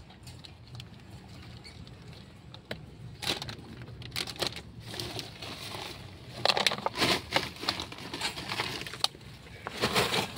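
Irregular rustling, scraping and light clicks as bones and grave debris are handled in a plastic-lined coffin, busiest about six to seven seconds in and again near the end, over a steady low hum.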